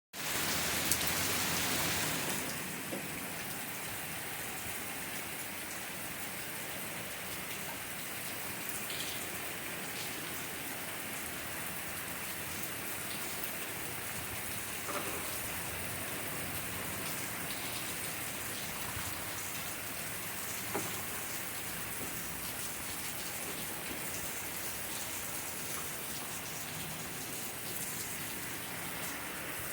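Steady rain falling, a little heavier for the first couple of seconds, with a few light ticks of drops striking now and then.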